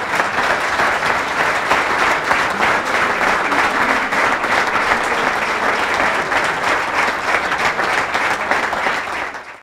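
Crowd applauding: dense, steady clapping that cuts off suddenly near the end.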